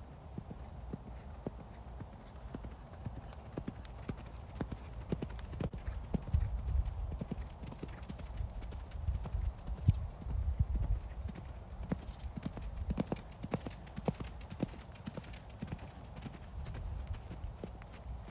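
Hoofbeats of a ridden horse on a gravelly arena surface, a run of irregular thuds and clicks as it trots and canters, heaviest about halfway through.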